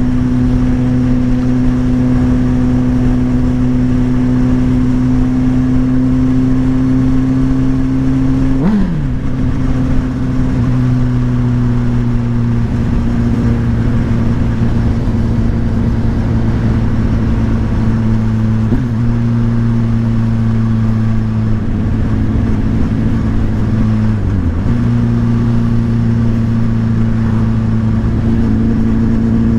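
Motorcycle engine running at a steady cruising speed under road and wind noise, its pitch dipping briefly three times, about a third of the way in, around two-thirds in, and again a few seconds later.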